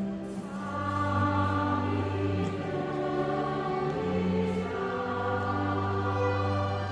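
Live ensemble music: slow, held chords over a sustained low bass note, changing every second or two.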